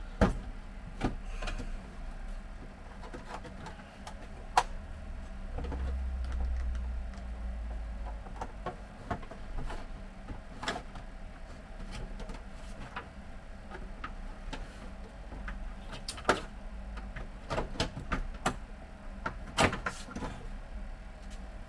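Scattered plastic clicks and knocks from a Brother DCP-T226 inkjet printer's casing as its scanner section is worked open by hand, with a low rumble for a couple of seconds about six seconds in.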